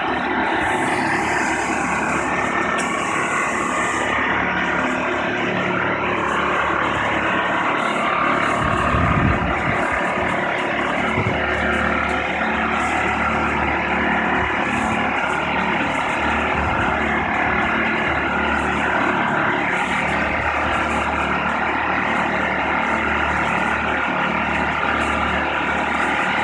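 Mobile boat hoist (travel lift) engine running steadily as it lifts a sailboat in slings. There is a brief louder low rumble about nine seconds in.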